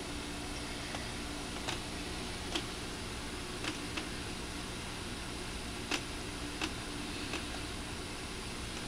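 Steady hum and hiss of a small aquarium air pump running a sponge filter, with about eight faint, irregular clicks.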